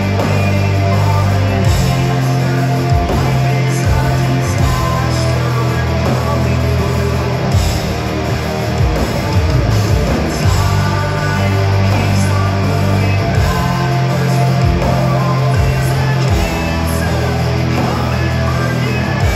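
Post-hardcore band playing live at full volume: distorted electric guitars, bass and drums, with a singer over them.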